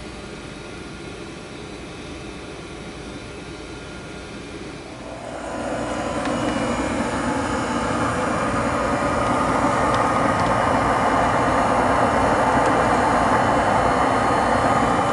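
Goodman 95% gas furnace's exhaust vent blowing out flue gas, a steady rushing that swells louder about five seconds in and then holds.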